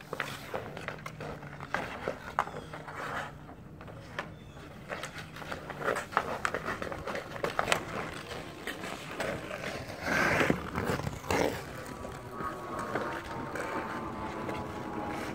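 Hockey skates scraping and gliding on rink ice, with hockey sticks clicking against the ice and puck. A longer, louder scrape comes about ten seconds in.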